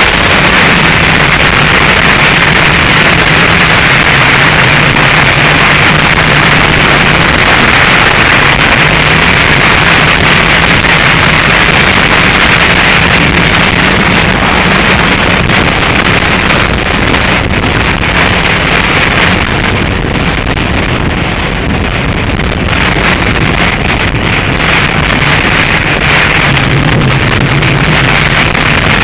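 A motorcycle travelling at about 60 mph, its engine humming steadily under loud wind rush on the microphone. The level eases off a little past the middle as the bike slows toward about 52 mph.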